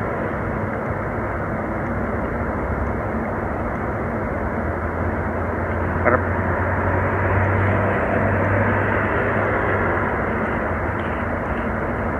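Steady background rumble, with a low hum that swells from about five seconds in and fades again after about ten seconds; a brief knock about six seconds in.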